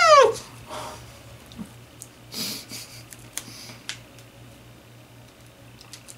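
A woman's voice in a short groan that slides down in pitch, then a breathy burst and scattered light clicks and crinkles from a plastic water bottle as she drinks.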